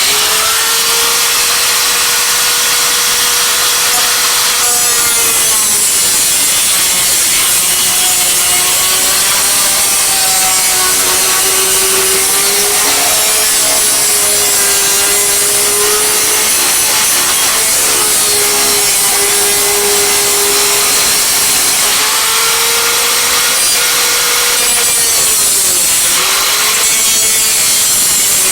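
Electric power tool cutting a rectangular opening in sheet-metal ductwork: a loud, continuous motor tone with harsh cutting noise, starting abruptly, its pitch sagging and recovering as the cut loads it, with two brief dips near the end.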